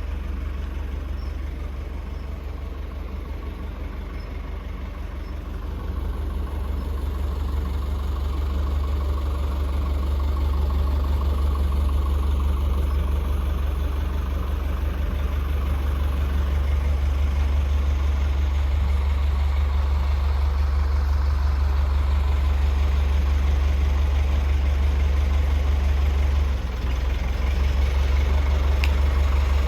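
An engine running steadily at idle, a constant low rumble that grows louder over the first several seconds and dips briefly near the end.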